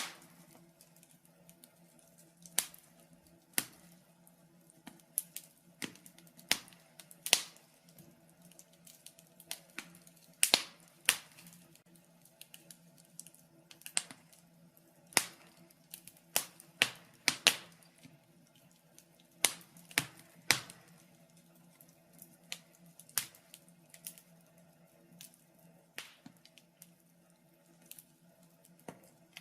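Wood fire in a fireplace crackling: irregular sharp snaps and pops, about one a second, over a faint steady low hum.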